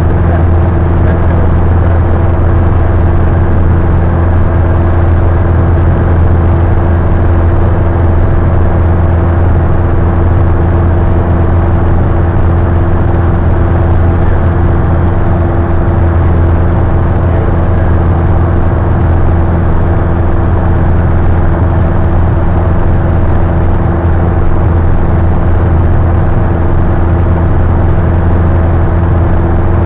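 Steady, loud drone of a high-wing light aircraft's engine and propeller in flight, heard inside the cabin, with a few held tones over an even rushing noise.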